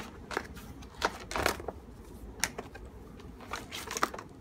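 Plastic packing strap being pulled off a cardboard box: scattered sharp snaps and rustles, with a longer crinkling scrape about a second and a half in and a quick cluster near the end.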